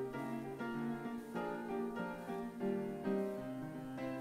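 Instrumental background music, a steady run of pitched notes.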